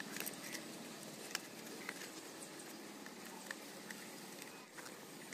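Faint, scattered small clicks as a screwdriver works the screws of a plastic terminal block inside a submersible pump's control box, over quiet steady background noise.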